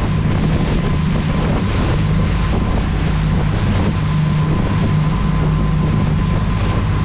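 Wind buffeting the microphone over a boat's engines running steadily at speed, with a continuous low hum, a faint steady whine above it, and the rush of the wake.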